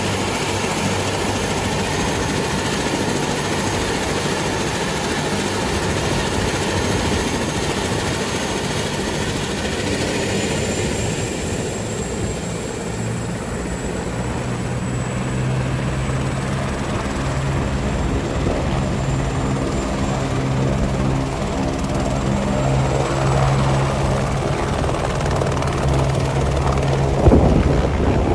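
Helicopter running steadily, with a thin high whine over its low drone that rises slightly about ten seconds in; near the end, gusts buffet the microphone.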